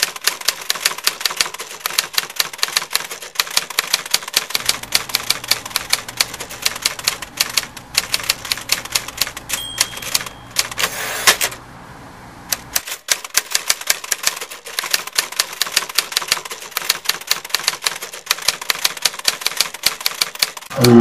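Manual typewriter keys clacking in quick, uneven succession. About halfway through a short bell ding is followed by the sweep of the carriage return, and after a brief pause the typing picks up again.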